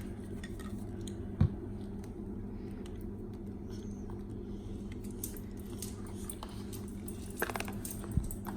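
Light handling noise: a few faint clicks and a short knock about a second and a half in, with a couple more light knocks near the end, over a steady low hum.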